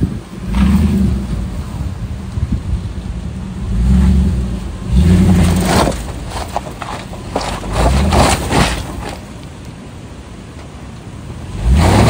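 Toyota 4x4 truck engine revving in short surges as it crawls a rough off-road trail. A run of sharp knocks and clatters comes between about five and nine seconds in.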